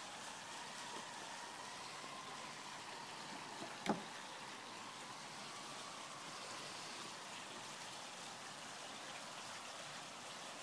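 Steady faint outdoor hiss, with a single sharp click about four seconds in.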